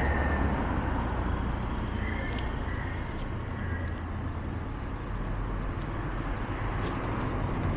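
Steady street traffic noise: an even low rumble of vehicles.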